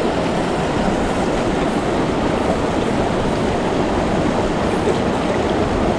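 Shallow river rushing and churning over rocks, a steady, even rush of water close by.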